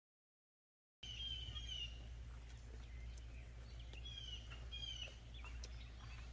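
Dead silence for about the first second, then birds chirping in short repeated phrases over a steady low hum, with a few faint clicks.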